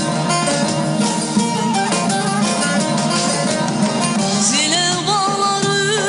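Live Turkish folk music: bağlama, acoustic guitar and keyboard play an instrumental passage. A woman's singing voice with a wavering vibrato comes in about four and a half seconds in.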